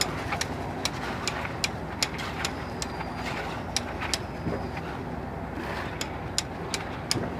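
A steady engine-like drone runs throughout, with frequent sharp clicks and taps over it, about two or three a second at uneven spacing.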